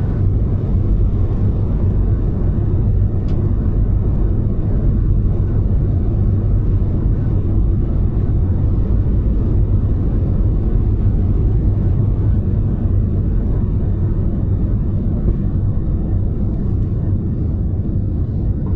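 Jet airliner's engines at takeoff power, heard from inside the cabin over the wing, with a loud, steady, deep rumble from the takeoff roll down the runway. In the later seconds the aircraft lifts off and climbs.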